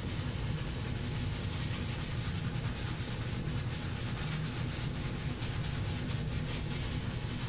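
Shaving brush scrubbing soap in circles over a bearded face, a steady brushing sound of bristles on skin and beard, with the soap spread still thick before water is added. A low steady hum sits underneath.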